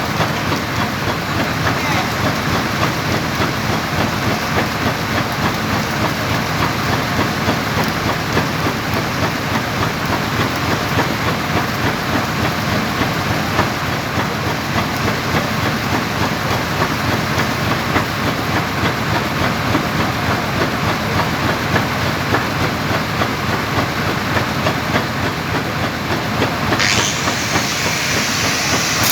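Electric arc welding on stainless steel pipe: a steady, dense crackling hiss that runs without a break.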